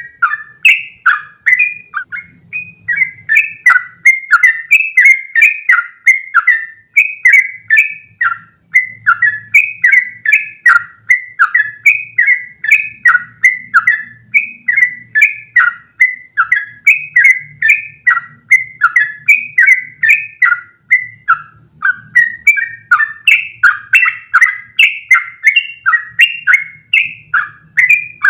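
Trucukan (yellow-vented bulbul) singing a long, unbroken run of quick, bubbling whistled phrases, several notes a second without a pause. This is the long single-breath 'ropel' song that keepers play to train their own birds.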